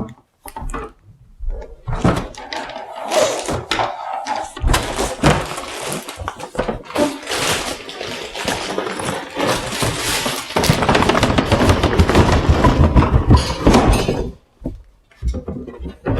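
Cardboard packaging and sealed plastic bags of LEGO pieces being handled: knocks and thuds of cardboard, crinkling plastic and loose bricks rattling in their bags. The crinkling and rattling is densest and loudest from about ten to fourteen seconds in.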